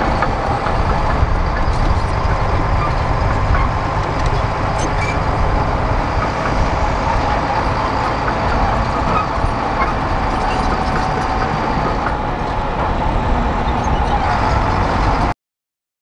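Komatsu D60P crawler bulldozer's diesel engine running steadily as it pushes soil with its blade; the sound cuts off suddenly near the end.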